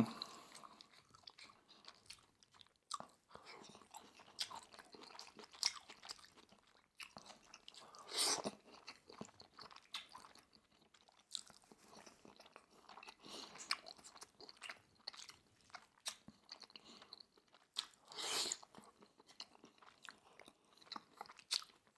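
Close-miked chewing: a person eating a mouthful of sukiyaki beef and brown rice, with soft, scattered wet mouth sounds and two louder ones about 8 and 18 seconds in.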